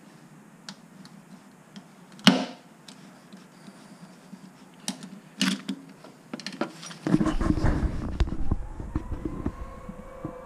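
Scattered metal clicks and knocks from a glue-on dent puller being worked on a motorcycle's steel fuel tank, with one sharp snap a little over two seconds in. From about seven seconds in comes a dense rumbling, scraping noise that slowly dies away.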